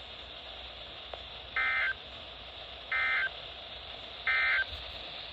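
Three short bursts of EAS/SAME digital data tones, the end-of-message code that closes the warning. They come about a second and a half apart over a steady hiss.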